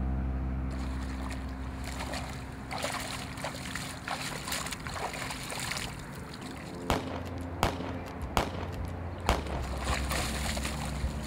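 Shallow shoreline water splashing and sloshing as it is scooped and stirred. In the second half, four sharp splashes of feet running through ankle-deep water, about one every three-quarters of a second. A low held chord of film score fades away under it.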